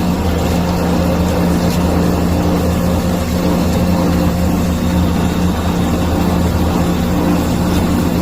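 A 1.5-horsepower soybean-grinding machine (soy milk grinder) running, its electric motor giving a steady, unchanging hum.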